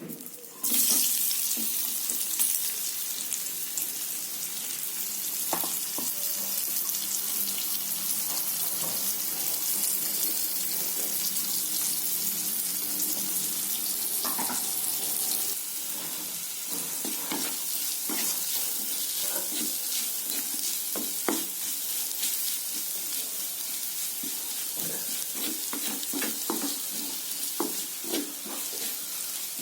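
Prawns hitting hot oil in a pan, bursting into a loud sizzle about a second in, then frying with a steady sizzle. There are occasional light knocks in the pan, mostly in the second half.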